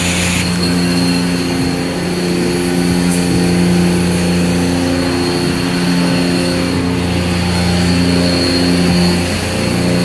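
Self-serve car wash pressure-washer system running steadily: the bay's high-pressure pump hums under the hiss of the spray gun.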